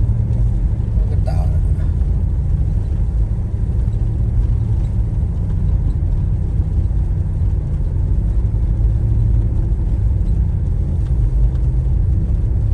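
Steady low rumble of a car in motion.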